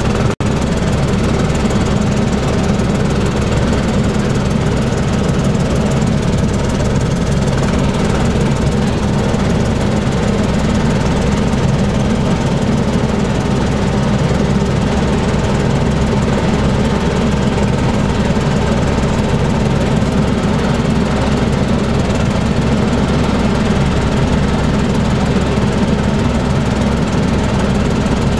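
Bell helicopter in forward flight, its engine and rotor running steadily, heard from inside the cockpit. The sound cuts out for an instant about half a second in.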